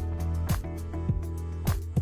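Background music with a steady beat, a drum hit about every half second over held bass notes.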